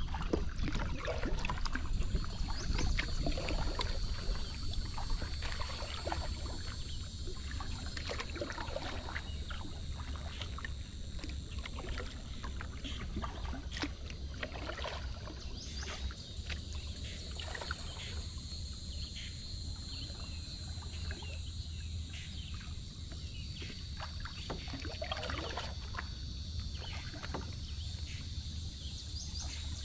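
Kayak paddling: scattered drips, splashes and small knocks of paddle strokes and water lapping against the plastic hull, over a steady low rumble. A steady high-pitched insect drone runs behind.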